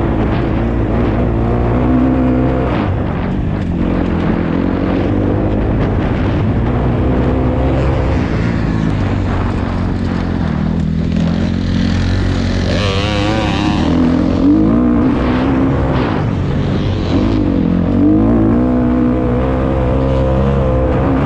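Dirt bike engine being ridden hard, its pitch rising and falling over and over as the throttle is opened and closed through the turns.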